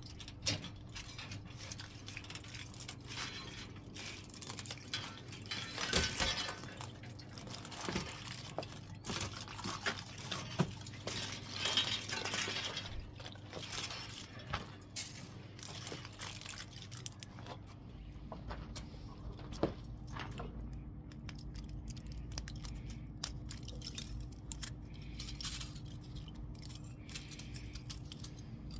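Irregular clinking and clattering of small hard objects, metal or glass, being handled, with a louder knock about six seconds in. A steady low hum runs underneath.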